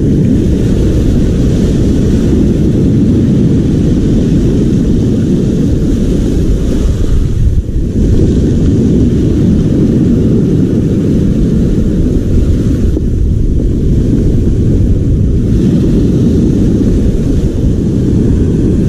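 Loud, steady low rumble of breaking surf and wind buffeting the camera microphone, with little in the upper range.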